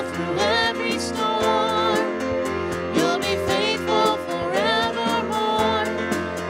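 Worship band playing a praise song: a man and a woman singing "You've been faithful through every storm, you'll be faithful forevermore" over a Nord stage keyboard.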